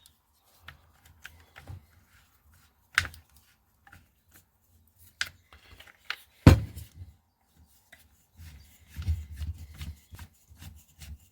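Clicks and knocks of plastic power-tool parts being handled and fitted: the side handle and depth guide going back onto an SDS rotary hammer, with one heavy thump about six and a half seconds in and a stretch of rubbing and rattling later as the handle is worked into place.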